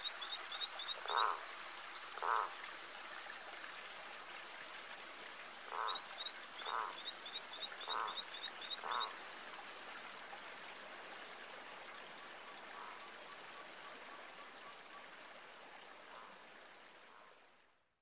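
Frogs croaking: single croaks about a second apart in two short runs, with a fast high-pitched trill running alongside them, over a steady hiss. The sound fades out near the end.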